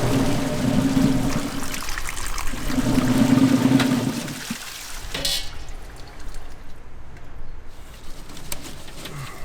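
Water running and splashing with a low hum, in two spells, stopping about four and a half seconds in; a short sharp noise follows, then quieter handling sounds.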